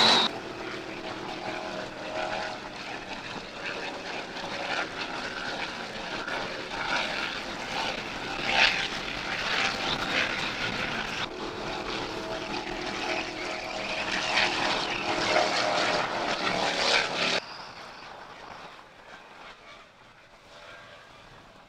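Offshore racing powerboats' engines running at speed as the boats pass, a steady drone mixed with rushing water and spray. About four seconds before the end the sound drops abruptly to a much fainter rumble of wind and water.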